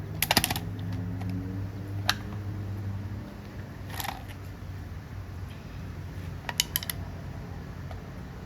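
Small metallic clicks and taps of tools and parts being handled while a STIHL 020T chainsaw is taken apart: a quick rattle of clicks near the start, single taps about two and four seconds in, and another short rattle of clicks near the end. A low steady hum sits underneath and fades out about three seconds in.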